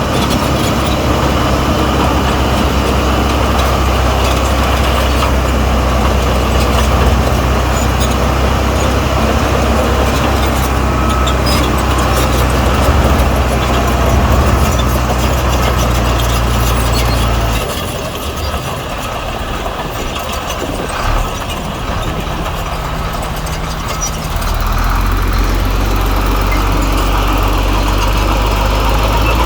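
Heavy diesel engine of earthmoving machinery running steadily under load. It eases off for several seconds past the middle, then picks up again.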